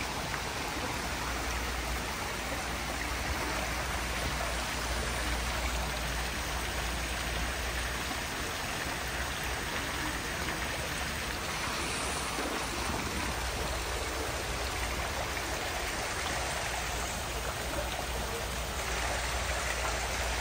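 Steady rush of running water, like a stream or small waterfall, with a low hum underneath.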